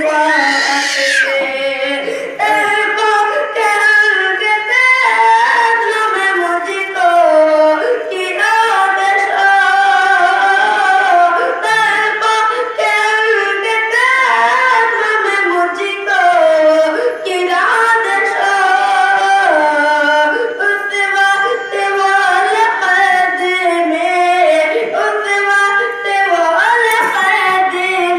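A solo voice singing a naat unaccompanied, high-pitched, with long held and wavering notes.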